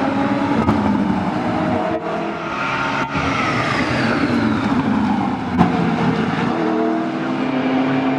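GT3 race car engines running hard, including the McLaren 650S GT3's twin-turbo V8, with several engine notes overlapping. Midway the pitch falls as a car goes by. A few sharp cracks cut through, the loudest one just after halfway.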